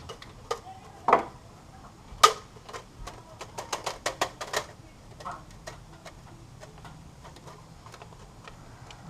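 Clinks and knocks of metal tools and engine parts being handled during engine reassembly. One knock about a second in and a louder one just after two seconds, then a quick run of about eight clicks, then scattered lighter taps.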